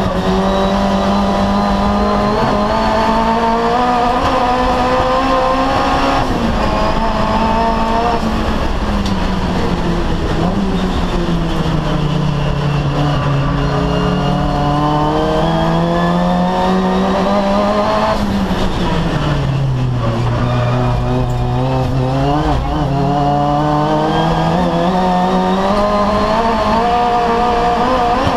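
Mitsubishi Colt Ralliart race car's turbocharged 4G15 four-cylinder engine heard from inside the cabin, held in third gear. The engine note drops as the throttle is lifted for corners, about six seconds in and again at about two-thirds of the way through. It then climbs steadily under full throttle and boost.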